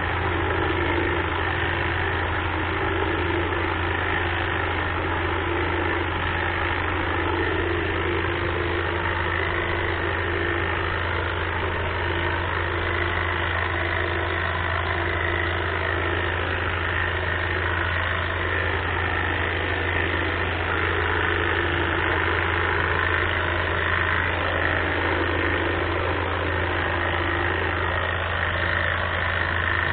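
Greenworks battery-powered hedge trimmer running steadily, its electric motor driving the reciprocating blades with no break.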